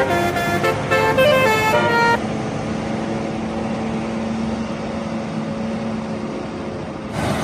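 Indonesian bus 'telolet' melody horn playing quick stepped notes for about two seconds, then stopping. A steady engine hum and road noise carry on after it.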